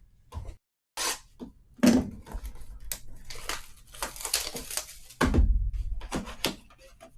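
Packaging of a trading card hobby box being torn open and crinkled by hand, in crisp tearing and rustling bursts with small clicks. There is a heavy thump about five seconds in.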